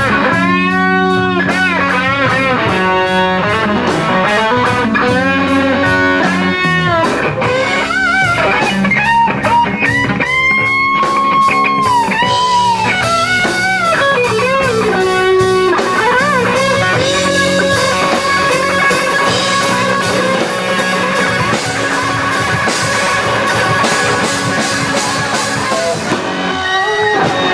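Live blues-rock band playing: an electric guitar solo of bent, wavering notes over bass guitar and drums.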